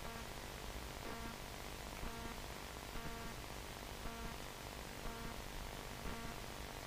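Faint background music, soft pitched notes about once a second, under a steady hiss.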